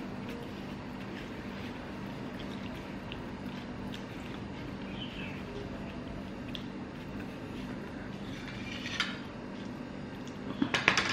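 Low steady room hum with a few faint ticks, then, about ten seconds in, several quick clinks of a china plate and metal cutlery as the plate is picked up from the table.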